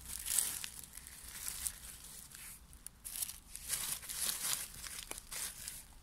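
Dry fallen leaves rustling and crackling in irregular bursts as a hand stirs through the leaf litter on the forest floor.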